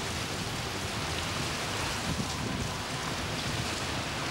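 Heavy rain pouring down steadily in a thunderstorm, an even, unbroken hiss.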